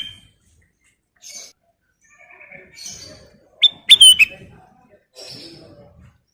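Kutilang emas bulbul singing: one short, loud phrase of sharp whistled notes a little past the middle, between fainter chattering notes.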